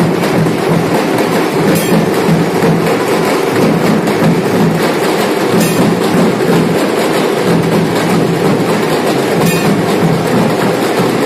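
Dhol-tasha ensemble playing: big dhol drums and tasha snare drums beating fast and loud in a dense, continuous rhythm.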